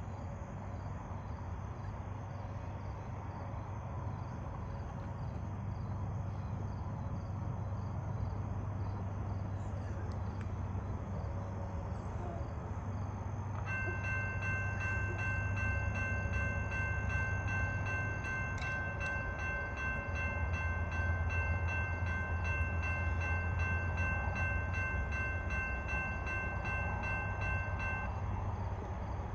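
An approaching Amtrak P32AC-DM diesel locomotive rumbles, louder as it nears. About halfway through it sounds its multi-chime air horn as one steady chord of several notes held for about fourteen seconds, the warning for the grade crossing. Crickets chirp faintly underneath.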